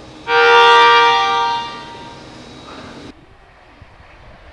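A train horn sounds one long, steady blast, loudest for about a second and a half, then fading. It cuts off suddenly about three seconds in, leaving quieter station background.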